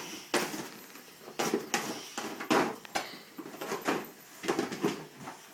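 A dog tearing and pawing at a wrapped present: paper and packaging rustling and crackling in irregular bursts.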